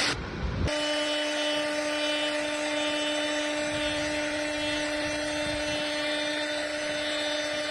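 CNC router spindles running at high speed and cutting wood: a steady high whine over the noise of the cut, starting abruptly just under a second in.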